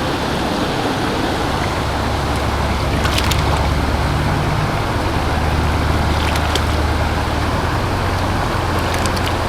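Steady rush of a fast-flowing creek, with a low rumble underneath and a few faint ticks.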